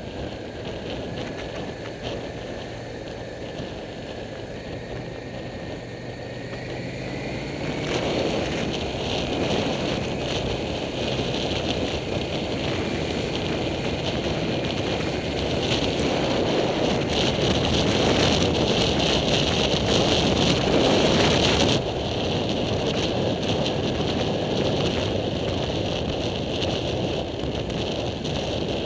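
Cruiser motorcycle engine running at road speed with wind rushing over the bike-mounted microphone. A faint whine rises in pitch over the first several seconds. The wind rush jumps louder about eight seconds in and drops suddenly a little past twenty seconds.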